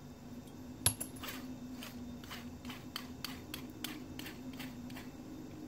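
Light metallic clicks and taps from a small hex driver and transmission parts being handled while the motor screws are tightened. One sharper click comes about a second in, then a run of light ticks about three a second, over a faint steady hum.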